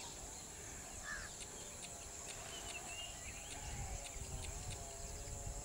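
Quiet wild outdoor ambience: a steady high-pitched drone of insects with faint, wavering bird calls and a few short chirps.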